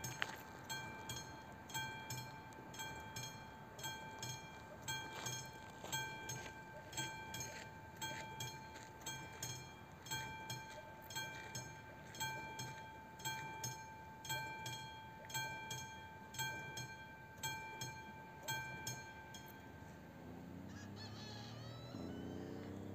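Level-crossing warning bell of an AŽD 71 crossing ringing about once a second while the red lights flash, then stopping as the crossing switches off. A short sound with gliding pitch follows near the end.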